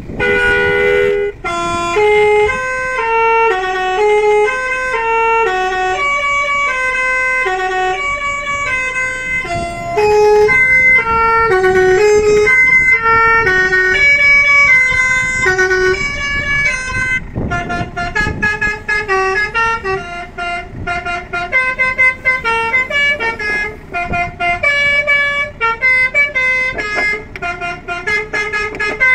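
500-watt electric basuri horn, a multi-trumpet telolet horn, playing a melody: several tones sound together as chords and change about every half second. Past the middle the notes turn shorter and quicker.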